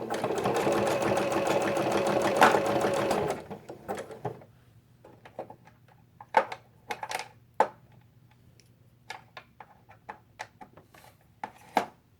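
Sewing machine running at speed, stitching a wide zigzag through coiled rope, for about three and a half seconds, then stopping. After that come scattered light clicks and knocks of handling at the machine.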